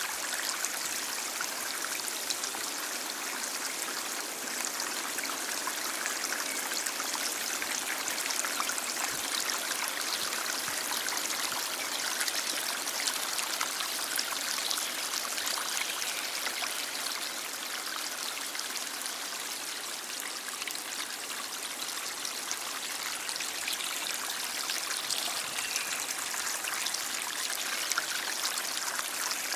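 Stream flowing steadily: an even, continuous rush of water with fine splashing all through it, mostly light and high with little deep rumble.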